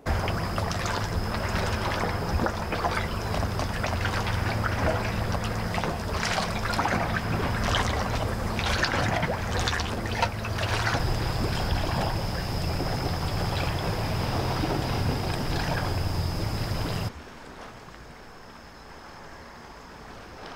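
Boat engine idling steadily with a low hum, over water sloshing against the hull. About 17 seconds in it cuts off abruptly, leaving a quieter background of wind and lapping water with a thin steady high whine.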